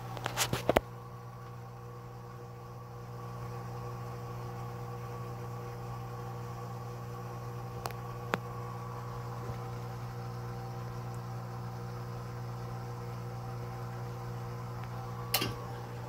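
A steady mechanical hum with a low drone and a few higher overtones, like a motor or fan running, a little louder from about three seconds in. A few sharp clicks come near the start and again near the end.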